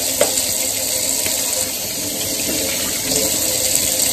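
Kitchen faucet running steadily into a stainless-steel sink, the stream splashing over hands being soaped and rinsed under it.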